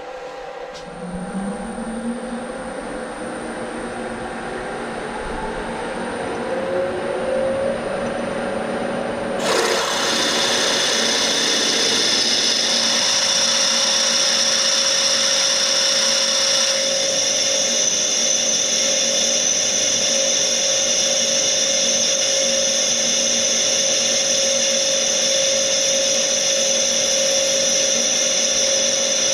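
Bridgeport milling machine spindle speeding up with a rising whine, then a twist drill cutting into a cylinder-cover casting. The drilling sets in suddenly about nine seconds in and runs steadily, with a high whine over the cutting noise.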